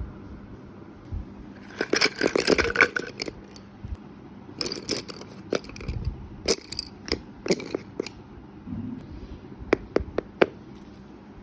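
Hands working craft materials: a burst of scraping and crinkling about two seconds in, then scattered sharp clicks and taps, with a quick run of crisp clicks near the end.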